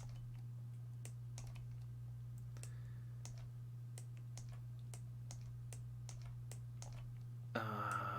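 Keyboard typing: light, irregular clicks over a steady low hum, with a brief louder sound near the end.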